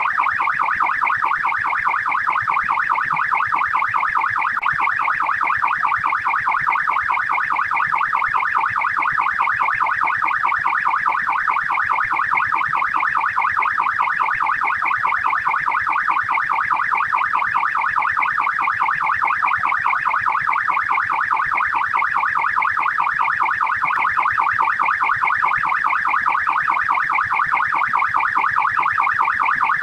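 Australian police car siren in fast yelp mode: a loud, unbroken, rapid up-and-down wail that repeats evenly.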